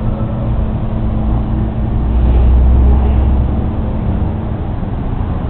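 Steady low rumble with a hum, like a motor vehicle engine running, swelling louder for a couple of seconds in the middle.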